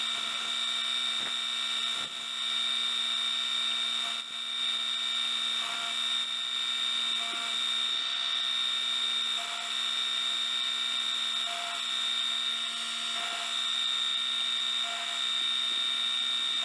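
Metal lathe running steadily with a high whine and a low hum while a boring bar cuts inside a spinning workpiece, with a faint short pip about every two seconds.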